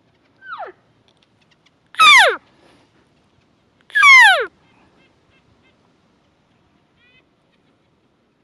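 Cow-elk mews: three whining calls, each sliding steeply down in pitch over about half a second. A short faint one comes first, then two loud ones about two seconds apart.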